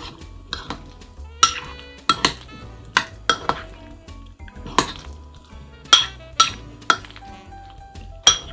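Metal spoon clinking and scraping against a ceramic bowl as it scoops up baked avocado and egg: about a dozen sharp, irregular clinks. Soft background music plays under it.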